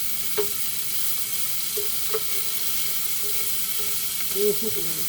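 Pieces of boneless chicken sizzling steadily in a little hot oil in a skillet, with a few short clicks.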